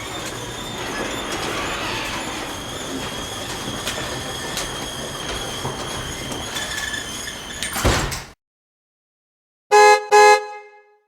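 Steady noisy background that swells and cuts off abruptly, followed by two short, loud horn toots in quick succession near the end.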